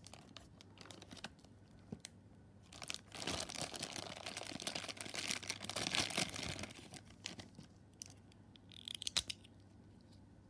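Thin clear plastic bag crinkling and tearing as it is opened and a small plastic toy figure is worked out of it. The crinkling comes in irregular bursts, busiest a few seconds in, with a few sharp clicks later on.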